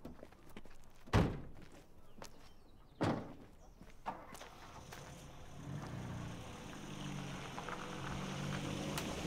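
Two heavy thunks, like car doors being shut, about a second in and about three seconds in, then a vehicle engine starts running steadily at a low pitch.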